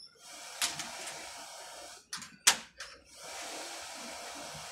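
Hands working on LED backlight strips on a TV's sheet-metal back panel: sharp clicks and taps, the loudest about two and a half seconds in, between two stretches of steady hiss about two seconds long.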